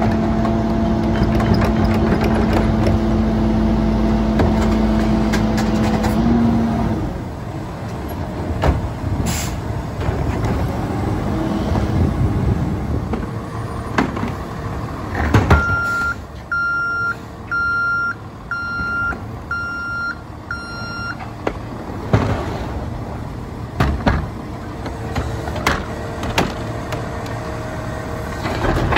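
Rear-loader garbage truck (Autocar ACMD with Loadmaster body) running its packer hydraulics with a steady whine that cuts off about six seconds in. Midway there is a loud clunk, then the truck's reverse alarm beeps six times, about once a second. More clunks follow as carts are handled, and the hydraulic whine starts again near the end.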